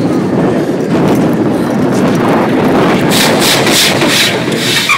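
Roller coaster train running on its track with heavy wind buffeting the phone's microphone. From about three seconds in, a quick run of sharp scraping rasps cuts through the rumble.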